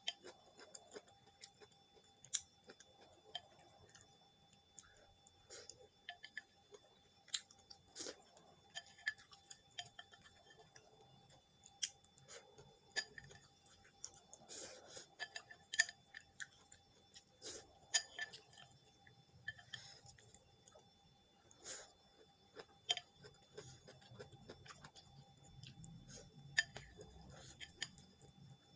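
Close-up eating sounds of braised pork and boiled cabbage: irregular sharp clicks and taps of utensils against a bowl, with soft chewing in between.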